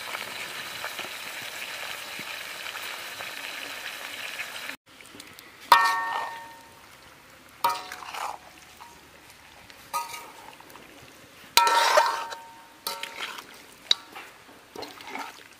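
Chicken curry sizzling steadily in a metal karahi over a wood fire, cutting off abruptly about five seconds in. After that, a steel spoon scrapes and knocks against the karahi as the curry is stirred, about six strokes, each ringing briefly.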